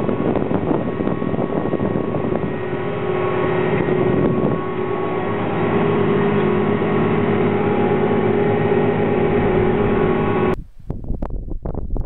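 Tractor engine and John Deere 7721 pull-type combine running steadily under harvesting load, a constant droning hum heard from inside the tractor cab. About ten seconds in, it cuts abruptly to wind buffeting the microphone outdoors.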